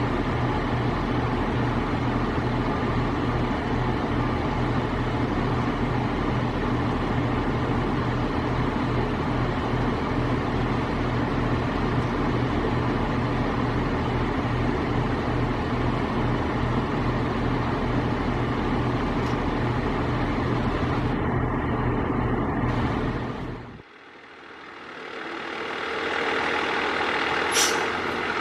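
A fire truck's engine idling steadily with a low, even drone. Near the end it drops away abruptly, then a vehicle's engine sound builds back up, with a brief high-pitched squeal shortly before the end.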